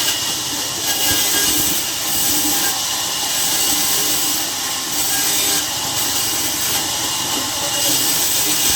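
Saw cutting through a log, giving a loud hissing rasp that swells and fades about once a second.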